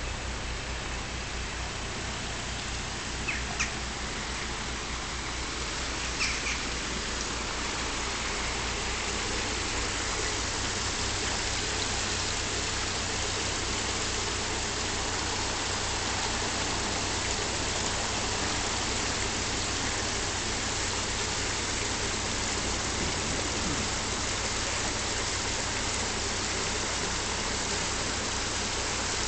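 Steady rush of water churning in a canal lock chamber as it fills or empties through the paddles, over the low, even pulse of a narrowboat's diesel engine ticking over. Two short squeaks come about 3 and 6 seconds in.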